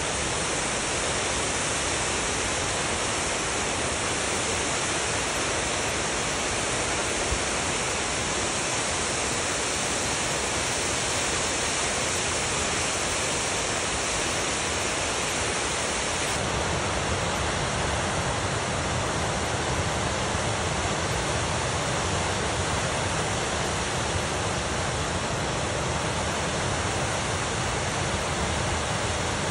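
Waterfall: a loud, steady rush of falling water. A little past halfway through, the sound shifts to a deeper rumble with less hiss.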